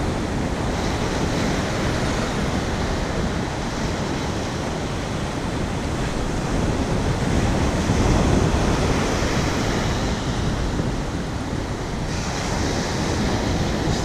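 Ocean surf breaking and washing up the beach, with wind buffeting the microphone; the rumble swells louder about eight seconds in.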